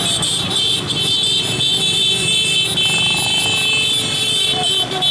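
Many motorcycles and scooters riding past in a convoy, their engines running together, with a steady high-pitched note on top.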